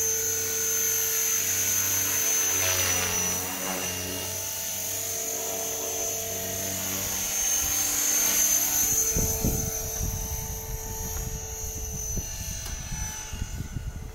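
RC stunt helicopter flying aerobatics: the steady high-pitched whine of its motor and rotor, with the pitch sweeping as it passes about three seconds in and again, loudest, about eight seconds in, then fading as it flies off.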